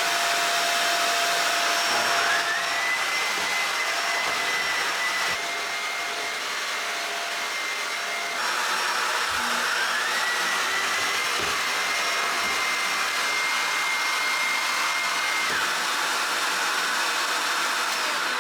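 Vacuum cleaner running steadily. Its motor whine climbs in pitch about two seconds in and again about ten seconds in, then drops near the end.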